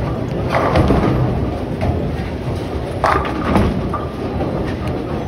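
Altered Reality bowling ball rolling down the lane with a low rumble after its release, then crashing into the pins about three seconds in, with a clatter of pins.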